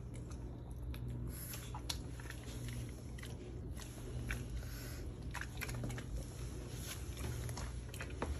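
A pug crunching and chewing a piece of raw carrot, with irregular crisp crunches throughout.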